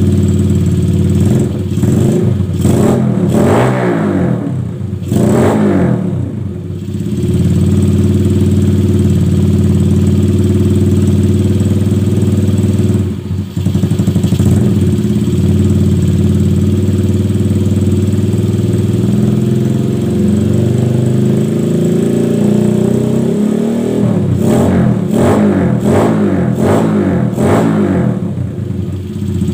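Yamaha Jupiter Z's single-cylinder four-stroke engine running through a long under-slung racing silencer exhaust, idling with a run of throttle blips rising and falling in the first few seconds, a brief drop about thirteen seconds in, and another run of revs near the end.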